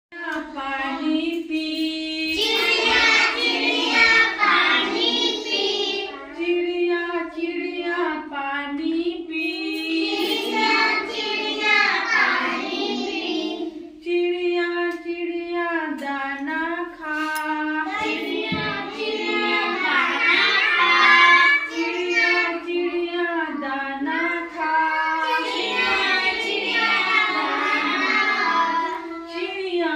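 A child singing a song in a high voice, with held, sustained notes, continuing without a break.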